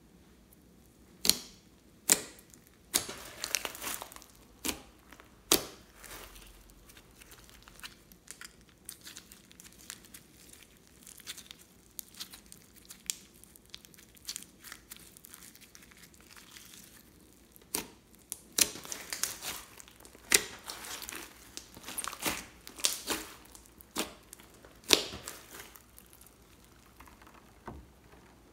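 Hands squishing, poking and stretching glittery slime, giving sharp wet pops and crackles. There is a cluster of pops in the first few seconds, then a quieter stretch, then a denser run of pops and crackles from about two-thirds of the way through.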